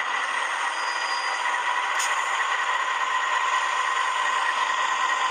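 Model C43/44 diesel locomotive running in reverse under DCC sound, its decoder playing a steady GE diesel engine sound through the model's small speaker. A single sharp click comes about two seconds in.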